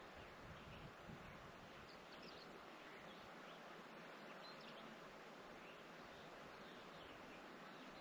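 Near silence: faint steady outdoor hiss, with a few faint short high chirps scattered through it.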